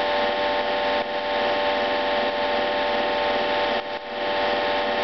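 Hydraulic pump and motor of a Baldwin compression testing machine running with a steady, even-pitched hum while it holds load on a flashlight. The level dips briefly about one second in and again just before four seconds.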